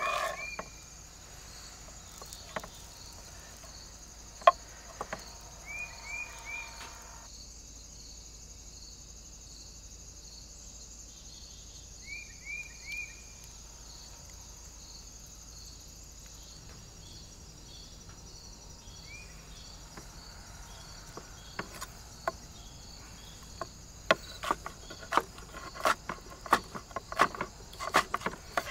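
Insects chirping steadily, with short chirps from a bird a few times. A single knife tap sounds early on, and over the last several seconds a knife cuts a soft coal-roasted red onion against a wooden cutting board in a quick run of chops.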